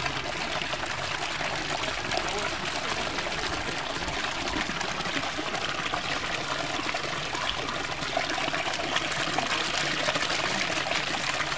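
A steady stream of water pouring from a fountain's pipe spout and splashing into a terracotta basin below.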